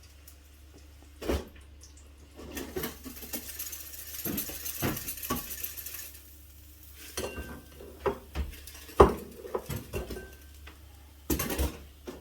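Kitchen cookware and utensils clattering: irregular knocks and clinks of pans, dishes and cutlery being handled, busiest in the first half and again toward the end.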